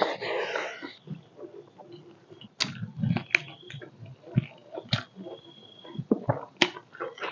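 Close-miked mouth sounds of someone eating pork leg: intermittent wet chewing, lip smacks and sharp clicks, busier in the first second and sparser after.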